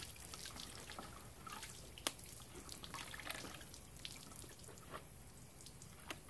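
Water dripping from a soaked, freshly rinsed motorcycle jacket into a plastic bucket of water: faint, scattered drops, with one louder drop about two seconds in.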